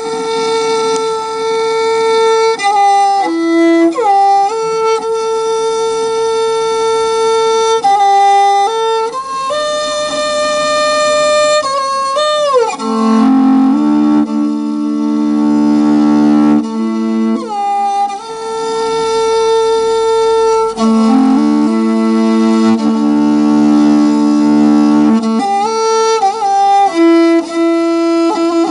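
Morin khuur (Mongolian horsehead fiddle) bowed in long held notes that slide from one pitch to the next, dropping to lower notes for two stretches in the middle.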